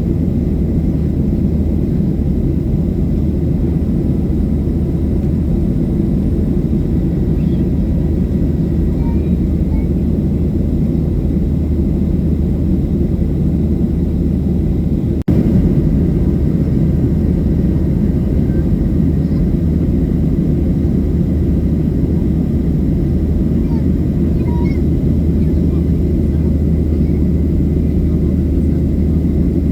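Boeing 737-700 cabin noise: a steady, loud low rumble of its CFM56 turbofan engines and airflow, heard from inside the passenger cabin. The sound breaks off for an instant about halfway through, then resumes.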